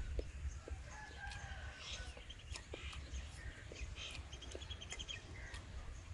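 A rooster crowing about a second in, with shorter high bird chirps around three to four seconds in. Scattered small clicks of eating come through over a low wind rumble on the microphone.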